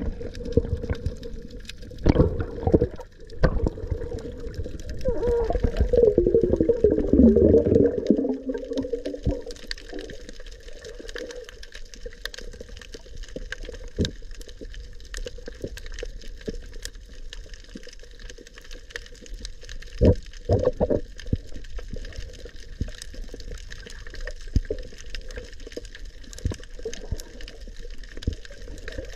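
Underwater sound picked up by a camera below the surface: muffled water noise that is louder and wavers in pitch for the first eight seconds or so. It then settles into a steady hiss scattered with sharp clicks, with a louder pair of clicks about twenty seconds in.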